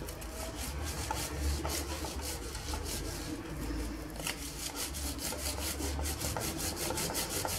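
Soft sesame cookie dough being rubbed hard down the coarse side of a metal box grater, in a quick, even rhythm of short rasping strokes.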